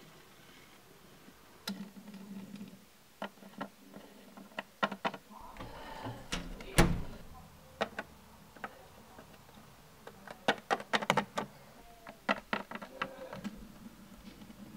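Hard plastic Littlest Pet Shop toy figures tapped and knocked on a wooden tabletop as they are moved by hand: sharp clicks, scattered at first, one louder knock about seven seconds in, then quick runs of taps later on.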